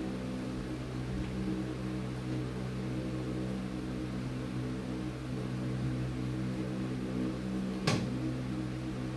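A steady low machine hum of several even tones, and one sharp click near the end.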